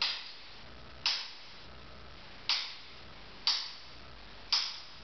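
Activator adjusting instrument, a spring-loaded chiropractic thrust tool, firing five sharp clicks roughly a second apart as it delivers adjustment impulses to a neck vertebra. Each click trails off quickly.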